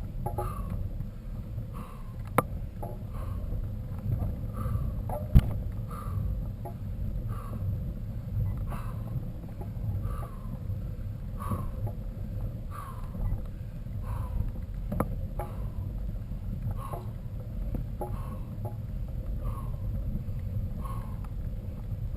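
Mountain bike on the move: a steady low rumble with a short squeak, falling in pitch, repeating about once a second, and a few sharp clicks.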